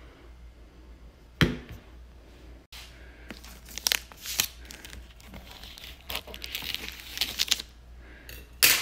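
A single knock about a second and a half in, then the clear plastic wrap on a multi-pack of facial tissue boxes crinkling in irregular bursts as it is handled, loudest near the end.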